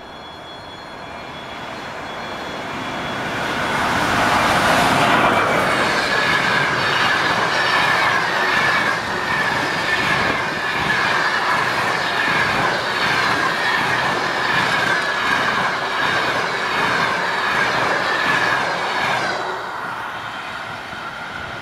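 A ChS2T electric locomotive hauling a passenger train passes at speed. The sound builds over the first four seconds as the locomotive arrives, then a long rake of coaches runs past with a rhythmic clickety-clack of wheels over the rail joints and a steady high ring. It drops off about a second and a half before the end as the last coach goes by.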